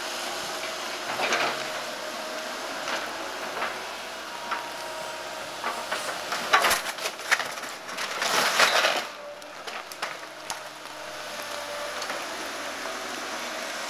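Excavator running steadily while its bucket crushes and breaks up the wooden debris of a demolished house, with repeated cracks and splintering of boards. The cracking is loudest from about six to nine seconds in.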